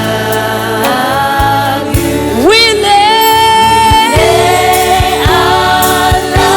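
Gospel worship music: a singer's voice slides up about two seconds in to a long, high held note with vibrato, then holds another note, over a sustained band accompaniment with low drum thumps.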